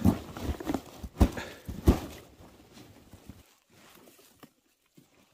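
Rustling and three dull thumps from a bundle of harvested mistletoe branches being handled. The thumps come in the first two seconds, and the handling dies away about three and a half seconds in.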